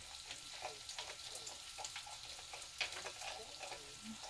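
Fish frying in a pan: a faint, steady sizzle with scattered small pops and crackles.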